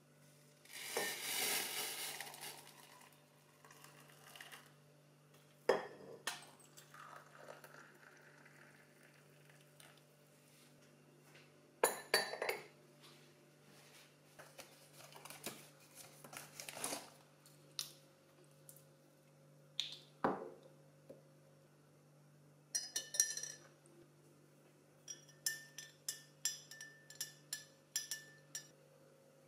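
A drink being made by hand: water poured from a kettle into a mug, a few knocks and clinks of cups and pots being handled, then a teaspoon stirring in a glass mug, clinking quickly against the glass near the end. A faint steady hum runs underneath.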